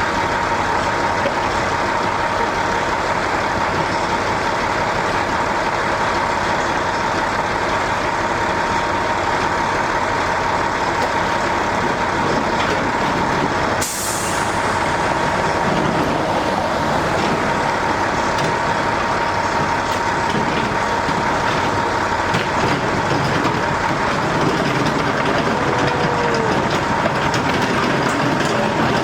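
Steady mechanical running noise with a constant tone, like an engine or motor, with a brief click about halfway through.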